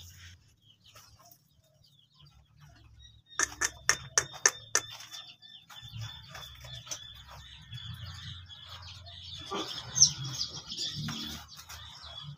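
Young kampung chicks peeping in a brooder, a thin high chorus that sets in about three seconds in. It comes with a quick run of sharp clicks and knocks at about the same moment.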